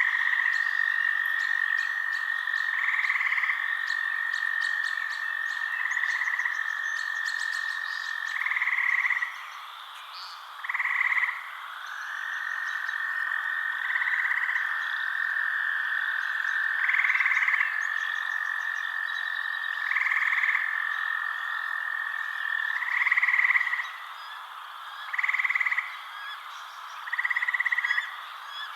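Frogs calling at night. One long, steady trill is held for several seconds at a time and breaks off once, about ten seconds in. Over it, a shorter, louder call repeats about every three seconds.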